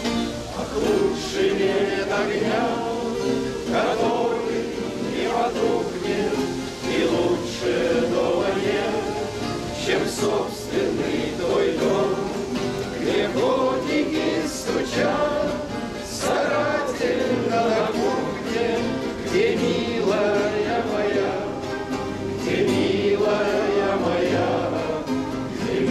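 A group of men and women singing a bard song together in chorus, accompanied by many acoustic guitars strummed at once.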